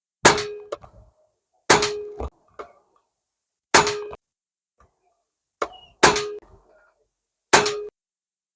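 Five shots from an Armex Reaper 10 PCP air rifle fired in quick succession, each a sharp crack with a short metallic ring, with fainter knocks after some of them.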